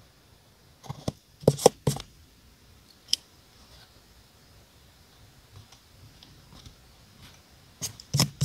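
Scissors snipping paper sticker sheets: a cluster of sharp snips about a second in, a single one at about three seconds, and another quick cluster near the end, with faint paper handling between.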